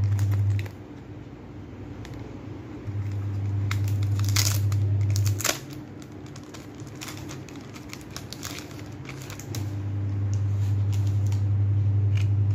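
Clear plastic packaging crinkling, with scattered clicks, as a boxed badge set and bagged merch are handled. A loud low hum cuts in abruptly about 3 s in, stops about 5.5 s in, and comes back about 9.5 s in.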